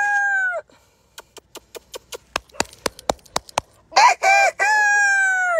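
Domestic rooster crowing: the end of one crow, then a second full cock-a-doodle-doo from about four seconds in, short notes and then one long note that falls at the end. Between the crows comes a run of about a dozen sharp clicks.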